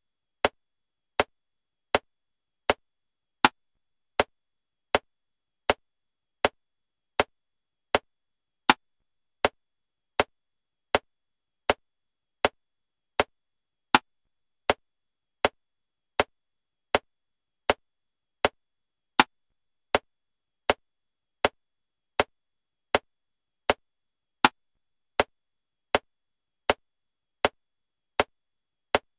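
Metronome clicking steadily at 80 beats per minute in 7/4 time, with a louder accented click on the first of every seven beats.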